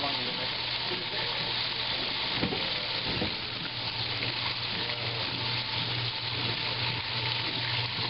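1955 Blackstone washing machine agitating a tub of clothes while fresh water sprays into it at the start of an overflow rinse: steady splashing and churning of water over a steady low hum.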